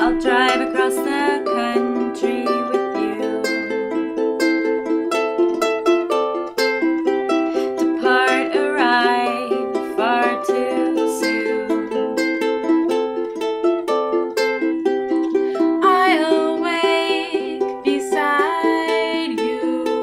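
Two ukuleles played together in a steady picked and strummed accompaniment, with a woman singing in phrases: near the start, about halfway through, and again near the end.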